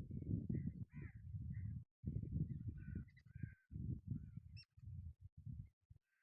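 Jungle babblers giving harsh, chattering calls, faint under a loud, choppy low rumble that comes and goes in irregular gusts and stops near the end.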